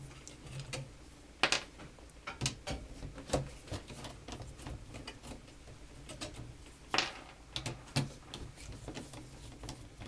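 Irregular clicks and taps of small metal screws and a nut driver being handled on a car radio's metal chassis, with a few sharper knocks about a second and a half in and again around seven and eight seconds.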